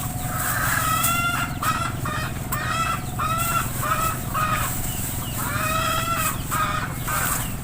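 Chicken clucking and cackling: a run of short, pitched calls repeating about one or two a second.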